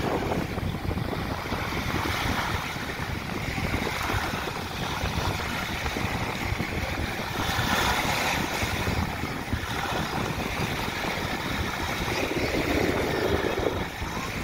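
Small sea waves breaking and washing up on a sandy beach, with wind rumbling on the microphone. The surf swells louder about halfway through and again near the end.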